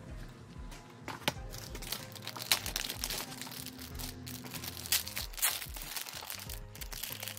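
Clear plastic bag of stickers crinkling and crackling in the hands as it is picked up and handled, in a run of short sharp crackles, over background music.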